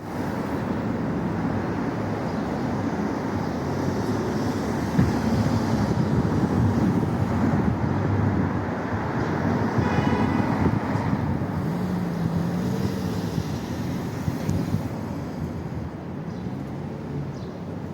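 Street traffic with car engines running at low revs, their pitch wandering up and down. A short higher-pitched tone sounds about ten seconds in.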